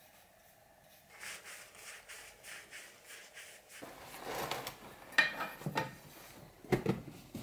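Soft rhythmic rubbing strokes, about three a second, then the crinkle and rustle of crumpled paper handled in an old metal tin, with a few sharp clicks near the end.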